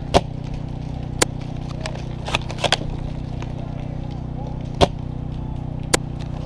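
Airsoft gunfire: about seven single, sharp cracks spread over the stretch, the loudest just after the start and another near five seconds in, over a steady low hum.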